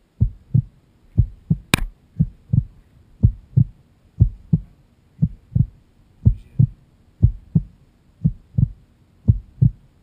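Heartbeat sound effect: a steady double thump, lub-dub, about once a second, with one sharp click about two seconds in.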